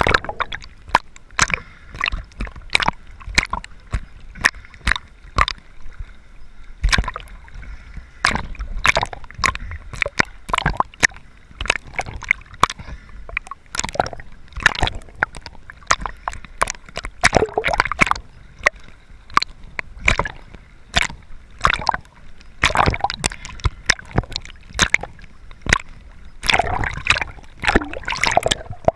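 Underwater water noise around a camera moving through shallow water: sloshing and gurgling with irregular sharp clicks and pops, a few each second.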